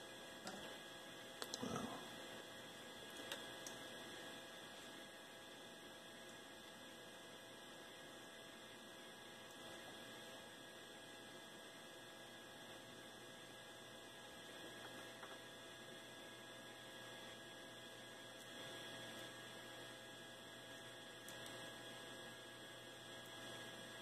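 Near silence: a steady faint electrical hum with several thin high whines, and a few faint knocks in the first few seconds.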